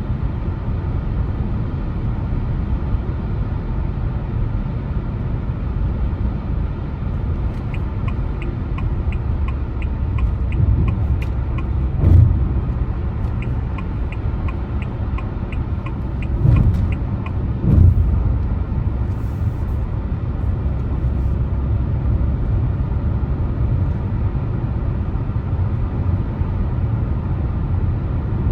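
A car driving, with a steady low road and engine rumble. Twice in the middle comes a run of fast, even ticking lasting a few seconds, and three dull thumps come in the second half.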